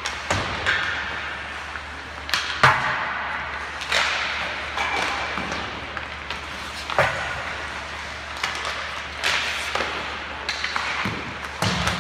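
Ice hockey pucks being shot and struck: a series of sharp cracks and bangs as sticks hit pucks and pucks hit the boards and net, one every second or two, each echoing around the rink, with skates scraping the ice between them.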